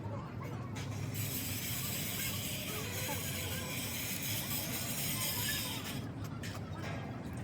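A steady hiss of air or spray starts about a second in and cuts off about six seconds in, over a low steady hum.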